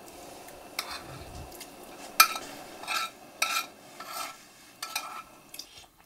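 A metal spoon stirring in a cooking pot, clinking against its side in a series of sharp metallic clinks, loudest about two seconds in.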